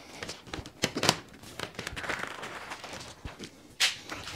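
Handling noise at a workbench: a length of rubber window glazing strip is pulled off its coil and dragged over the wooden tabletop, with uneven rustling and a few sharp clicks and knocks.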